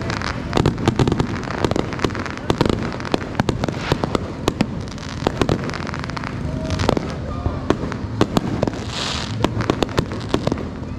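Fireworks and firecrackers going off all around: a dense, irregular run of sharp pops and bangs, with a short hiss about nine seconds in.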